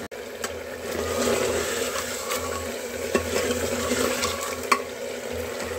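Mutton pieces sizzling as they are stirred and fried down with a metal ladle in an aluminium pressure cooker, the ladle clicking against the pot a few times. The meat is being fried to dry off its liquid until the oil comes to the surface.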